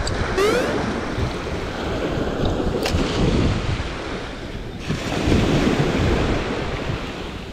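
Wind buffeting the microphone over the steady wash of surf, with a brief click about three seconds in.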